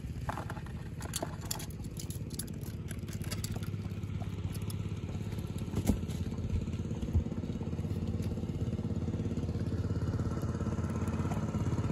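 A motor engine running steadily, growing slightly louder in the second half. Over it come clicks and clatter as a catch of crabs and debris is sorted by hand on a wooden boat deck, with two sharper knocks in the middle.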